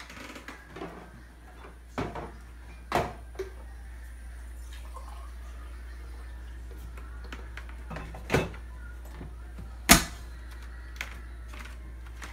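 A few sharp knocks, about two, three, eight and ten seconds in, the last the loudest, over a steady low hum.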